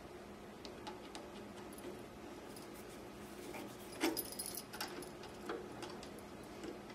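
Small metal clicks and scrapes of a screwdriver working the screws back into the rotary hook assembly of a Cowboy CB3200 leather sewing machine, with a brief cluster of louder metal clicks about four seconds in.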